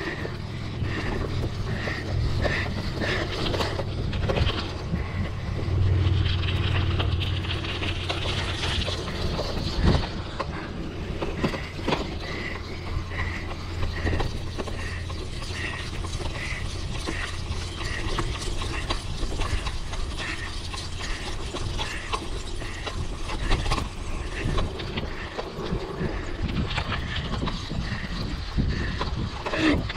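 Mountain bike riding on a dirt trail: rumble from the tyres and wind, with a mechanical tick from the bike repeating about one and a half times a second and scattered clicks.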